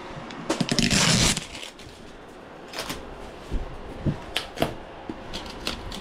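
Rustling and crinkling of protective packing material being pulled off a new refrigerator, loudest about half a second in, followed by scattered light knocks and clicks as the pieces are handled.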